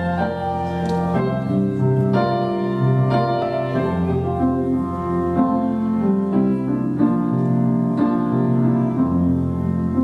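Slow piano music, with new notes struck about once a second over held low bass notes.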